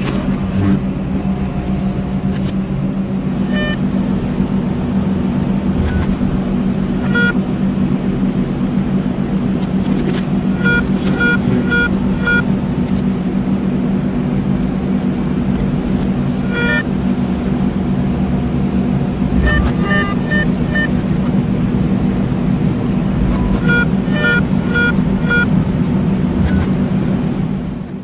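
Vintage sci-fi computer sound effect: a steady low electronic hum under clusters of quick high beeps, like a computer processing data. It fades out near the end.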